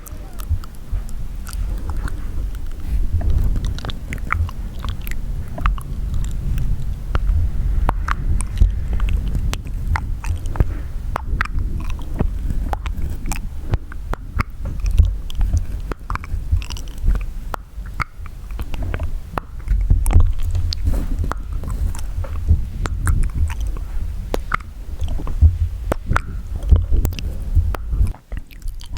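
Close-miked wet mouth sounds: lips and tongue making many small, irregular clicks and smacks, with a low rumble underneath.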